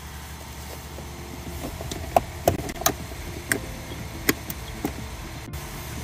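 Plastic center-console trim being handled and fitted around the shifter, giving a series of sharp clicks and knocks, about eight between two and five seconds in, over a steady low hum.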